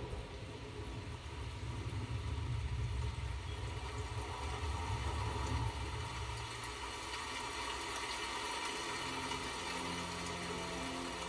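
A low, steady engine-like rumble that fades out about two-thirds of the way through, with a steady low hum coming in near the end.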